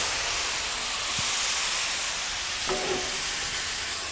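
Water poured into a hot, oiled pan of potato wedges hissing and steaming, the hiss slowly dying down.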